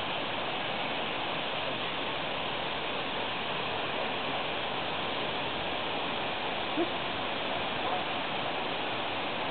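Steady, even rushing noise with no rhythm, like running water, and one short low tone about seven seconds in.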